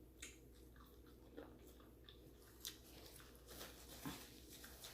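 Faint close-up chewing of fried chicken: soft, scattered mouth clicks and smacks.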